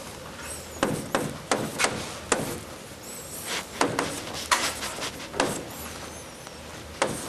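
Chalk tapping and scraping on a blackboard as numbers are written: about a dozen irregular sharp taps, with a few faint high squeaks.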